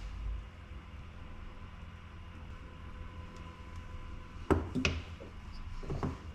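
Plastic 21700 cell holders and cylindrical lithium-ion cells clicking and knocking as they are pressed together by hand: two sharp clicks about four and a half seconds in, then softer knocks near the end, over a steady low hum.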